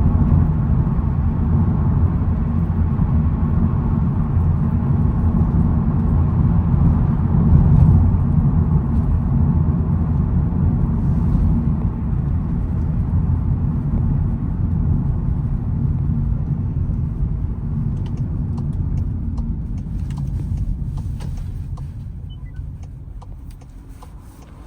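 A 2022 SEAT Ibiza FR on the move: a steady low rumble of engine and road noise that fades away over the last few seconds.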